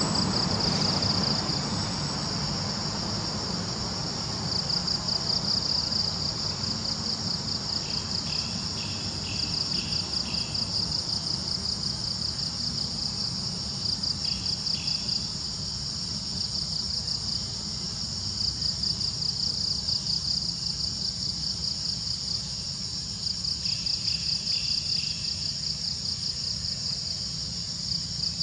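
Steady, high-pitched insect chorus with a fast pulse. Short runs of a lower, rapid chirping come in a few times. A low steady rumble runs underneath.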